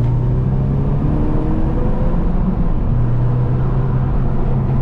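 Chevrolet Cruze 1.4 turbo four-cylinder engine, breathing through a new downpipe and catback exhaust with the rear muffler removed and only one intermediate muffler left, heard from inside the cabin while driving. The engine note rises under acceleration for about two seconds, then holds a steady drone from about three seconds in.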